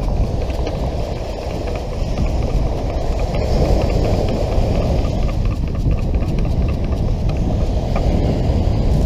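Wind buffeting the microphone: a loud, steady low rumble with no pitch.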